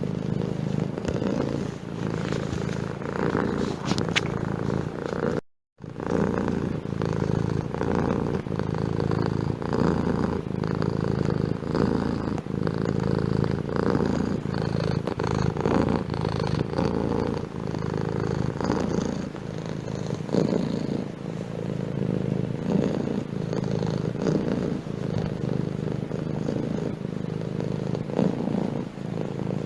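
Domestic cat purring steadily close to the microphone, with a brief break in the sound about five and a half seconds in.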